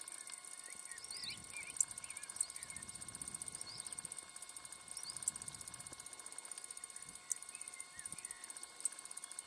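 White-faced bush-cricket (Decticus albifrons) stridulating: a steady, high-pitched, rapidly pulsing song. A small bird chirps over it several times.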